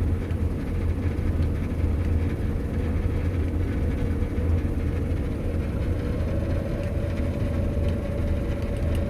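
Combine harvester running steadily under load while reaping barley, heard from inside the cab: a low engine drone with a steady whine above it.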